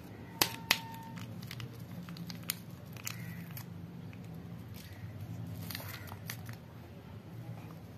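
Paper stick packet being handled and torn open, crinkling, with two sharp snaps about half a second in, then scattered light crackles as the powder is shaken out.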